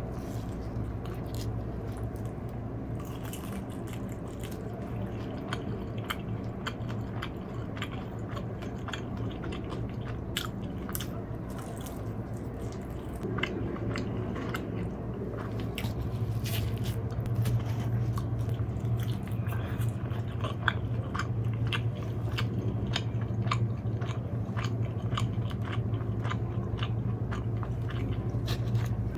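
Close-up chewing and biting of crisp fried food, with many short crunches. Underneath runs a steady low hum of outside noise through an open window, which grows louder about halfway through.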